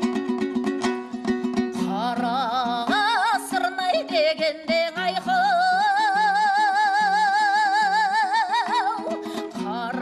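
Kazakh folk song with plucked-string accompaniment: the strings are heard alone for about two seconds, then a solo voice comes in with a wide vibrato and holds long notes.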